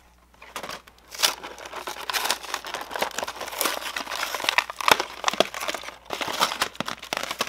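Clear plastic blister pack with its cardboard backing card being pulled apart by hand: continuous crinkling and crackling of plastic with sharp snaps, starting about half a second in.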